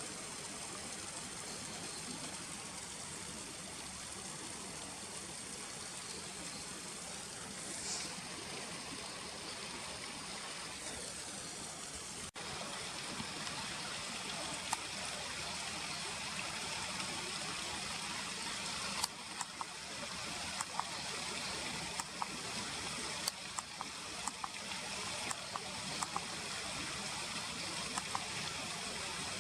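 Steady rush of flowing river water. In the second half come a series of sharp clicks.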